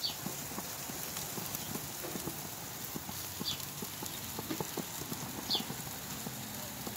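Food crackling and popping on a gas grill: irregular soft pops over a steady hiss. Three short, high chirps that fall in pitch sound at the start, about three and a half seconds in and near five and a half seconds.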